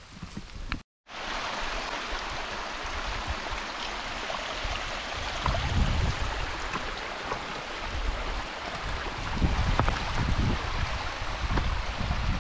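Steady rush of a mountain stream's running water, starting abruptly about a second in after a brief silent gap.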